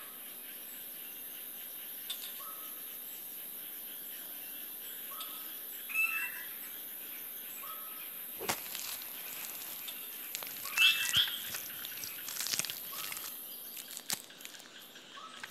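Forest ambience: a steady high insect hiss with short, repeated whistled bird notes and a few higher chirps. Several sharp clicks and snaps come in the second half.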